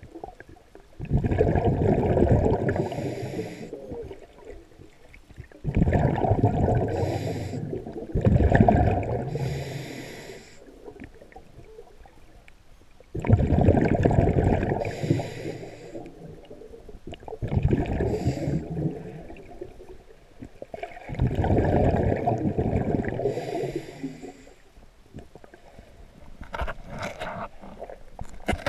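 Scuba diver breathing through a regulator underwater: swells of gurgling bubbles and hiss come about every four seconds with quieter gaps between them, the last one fainter.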